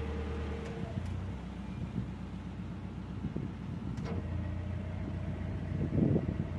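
Narrowboat diesel engine running steadily at low revs, with a brief louder swell about six seconds in.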